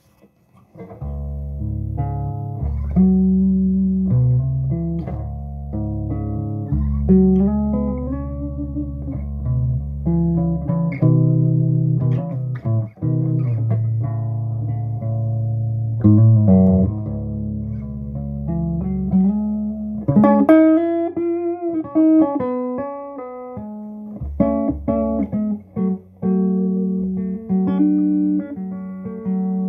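Electric guitar, a Terry Morgan GT, played through a Mark Kane Overdrive Special amp head and speaker cabinet: a melodic passage of held low notes under single-note lines, starting about a second in, with a bent, wavering lead phrase about two-thirds of the way through.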